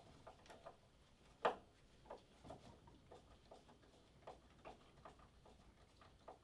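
Faint, irregular clicks and ticks of a screwdriver turning screws into a door hinge, about two or three a second, with one louder click about a second and a half in.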